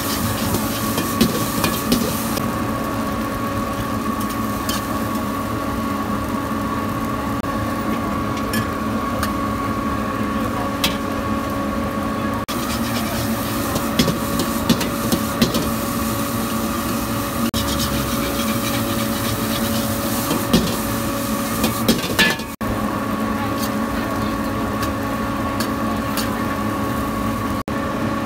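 A metal spatula scraping and clacking against a wok while stir-frying rice, with scattered sharp knocks, over a steady droning machine hum.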